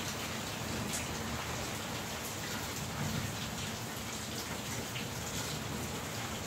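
Steady monsoon rain falling, a even hiss with scattered close drops ticking, and a low rumble underneath.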